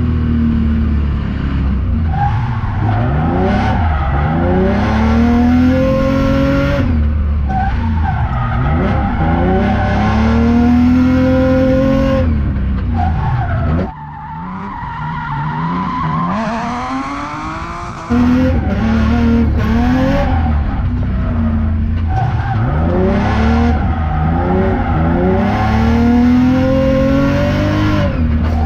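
Supercharged BMW E36 325i's straight-six revving up and down again and again as the car slides through a drift, with the tires skidding and squealing. Midway the engine sound drops to a quieter, duller level for about four seconds, then comes back as loud as before.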